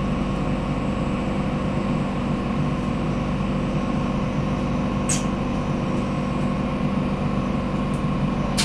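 Steady electrical hum and drone inside an electric commuter train car, with two brief sharp clicks, one about five seconds in and one near the end.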